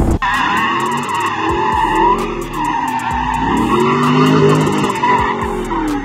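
Corvette V8 revving up and down in a drift while the tyres squeal, over background music with a steady beat and quick hi-hat rolls.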